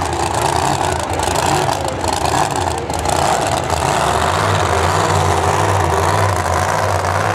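Distant monster truck engines running at a low, steady idle. The hum gets a little stronger about four seconds in.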